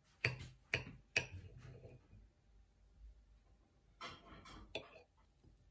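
A small knife cutting through a soft pumpkin cake, its blade knocking sharply on the ceramic plate three times in quick succession, then scraping across the plate about four seconds in as it slides under a slice.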